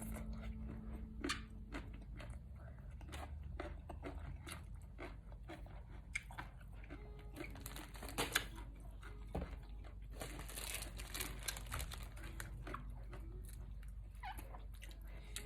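A person eating close to the microphone: irregular crunching and chewing with many small clicks, typical of biting into raw vegetables. There is a longer hissy rustle about ten seconds in.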